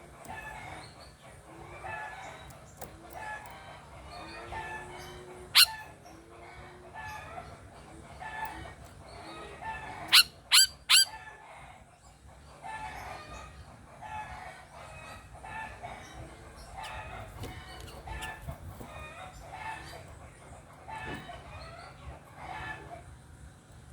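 Many birds calling and chirping over one another, with short repeated notes throughout. A loud sharp sound comes about five and a half seconds in, and three more come in quick succession around ten seconds in.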